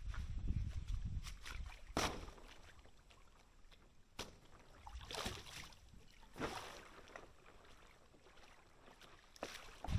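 Creek water splashed and swished in several separate sweeps, as something is washed clean, with a low rumble at the start.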